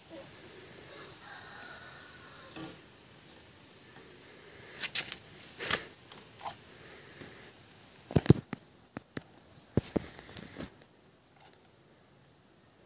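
A run of sharp plastic clicks and knocks as a plastic funnel is worked into a motorcycle engine's oil filler hole. The loudest come about eight seconds in and again about ten seconds in.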